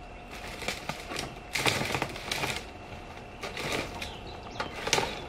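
Hand tools clicking and rattling against metal in irregular bursts, with a denser clatter about two seconds in and a sharp click near the end.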